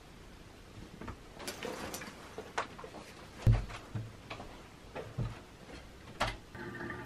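Scattered light clicks, knocks and low thumps of a person moving about a small room, such as footsteps and the handling of a backpack, with the loudest thump about halfway. A steady hum with a few held tones starts near the end.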